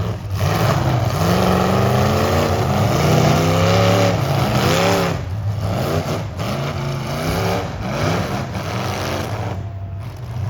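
Demolition derby cars' engines revving hard, pitch sweeping up and down, over a steady low rumble of several cars running at once.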